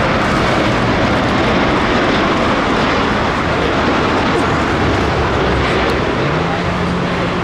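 Jet airliner passing low on landing approach: a loud, steady rush of engine noise. A low steady hum joins near the end.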